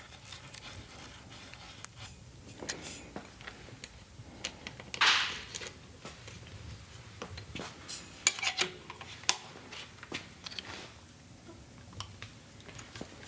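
Small metal tools and bike parts clinking and tapping as they are handled, scattered sharp clicks. A brief louder rasping noise comes about five seconds in.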